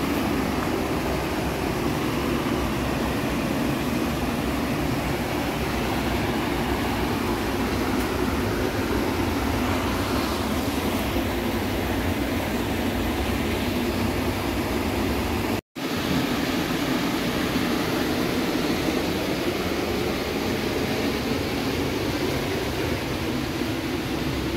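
Steady rush of river water pouring over a low weir. The sound cuts out for an instant about two-thirds through and eases slightly near the end.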